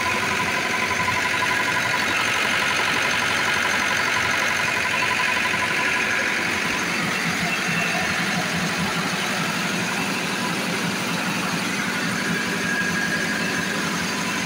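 Perkins four-cylinder diesel engine of a 40 kVA generator set running steadily, with a thin high whine over it for the first half and a fainter, higher whine near the end.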